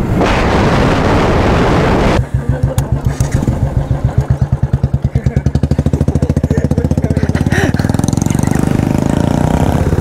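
Motorcycle engine idling with a rapid, regular pulsing beat, heard after about two seconds of dense rushing wind-like noise that cuts off abruptly.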